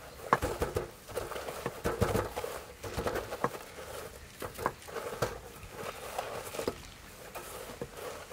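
Hands pressing and patting breadcrumbs onto raw chicken drumsticks on a metal tray: crumbs rustling and pattering, with irregular soft taps.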